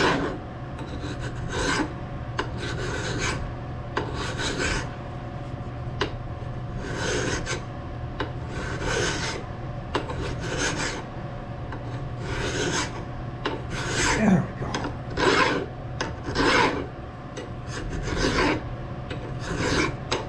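Hand file rasping across the edge of a metal part held in a bench vise, in uneven strokes about once a second: the sharp edges of a freshly milled flat are being filed off and rounded.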